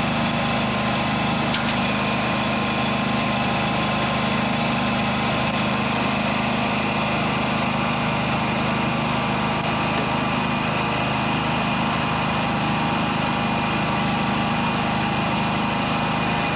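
Pacific Tek vacuum excavator running steadily: its engine and vacuum blower give a constant, unchanging hum with a rush of air over it.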